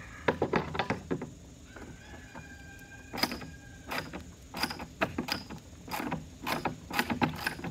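Socket ratchet clicking in short back-and-forth strokes as a 14 mm nut on the sprayer's wheel axle is snugged down, with a pause between strokes about two seconds in.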